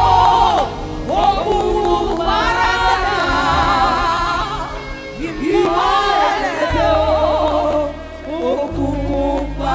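Gospel worship singing: a voice in long, sliding phrases over music with a steady low bass.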